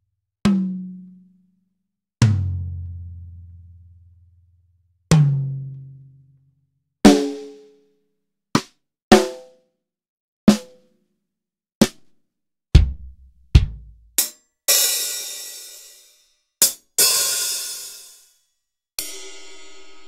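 Single drum one-shot samples played one at a time with silent gaps. The first few ring at different pitches and die away over a second or two. These are followed by quicker, shorter hits, two deep thumps about thirteen seconds in, then two long crashing cymbal washes, and near the end a sustained ringing tone begins.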